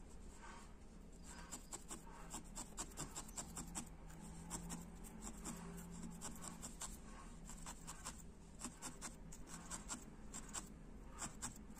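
A felting needle being jabbed over and over into wool, felting a small white wool eye onto a ladybird toy: quiet scratchy pricks, several a second in irregular runs.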